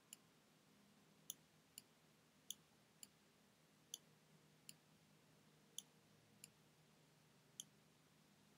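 Faint, sharp clicks of a computer's pointing-device button, about ten in all, several in pairs about half a second apart: press and release as cards are dragged and dropped, over near silence.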